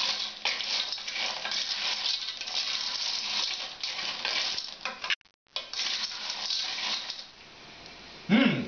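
Periwinkle shells clinking and rattling against each other and the sides of a stainless steel pot as they are stirred with a wooden spoon, a dense run of small clicks. The rattling breaks off for a moment about five seconds in, goes quieter about seven seconds in, and a short voice sound comes near the end.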